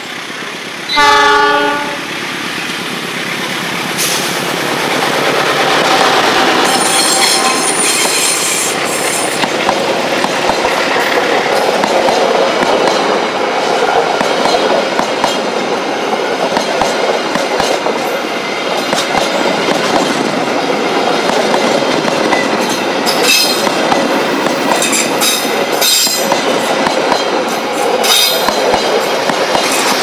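Diesel locomotive horn, one short blast about a second in, then a passenger train rolling past over curved track and points: a steady rumble of wheels with clanks and clatter, and wheel squeal that turns sharper and higher near the end.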